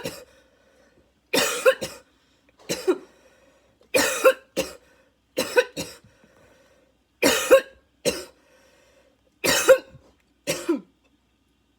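A girl's coughing fit: harsh, barking coughs, mostly in pairs, coming about every second and a half, some trailing off in a falling, wheezy tone. The coughs come from tight, struggling lungs badly in need of an inhaler.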